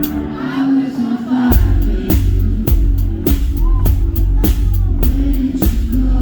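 Live band music: sustained chords with the bass and drums held back, then the full band kicks in about a second and a half in, with a steady drum beat and heavy bass.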